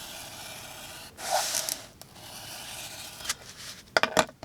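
Folding knife tip slicing through cardboard: a steady scraping rasp, louder for a moment about a second in, with a few sharp cracks near the end.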